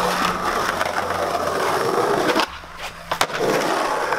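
Skateboard wheels rolling on smooth concrete. About halfway through the rolling drops away for roughly a second, broken by two sharp clacks, then the rolling starts again.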